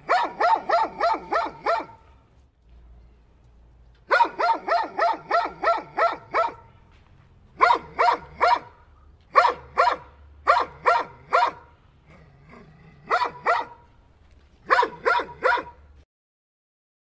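A dog barking in quick runs of sharp yapping barks, about four a second, in several groups with short pauses between them. The barking cuts off abruptly near the end.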